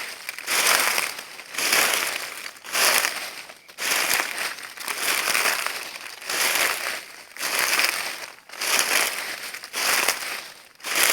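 Footsteps crunching through dry leaves at a steady walking pace, about one crackling step a second.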